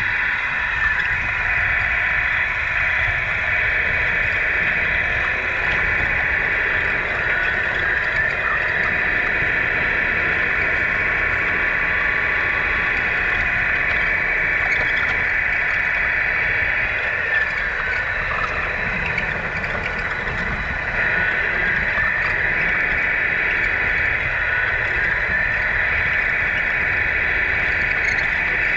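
1/14-scale Tamiya RC semi trucks running, giving a steady high whine with a few brief rising and falling pitch sweeps as they change speed, over a low rumble.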